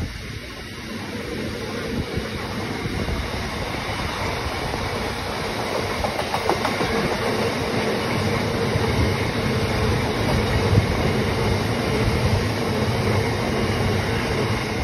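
Freight train of open box wagons rolling past, a steady noise of wheels running on the rails that builds over the first few seconds, with a faint steady tone underneath.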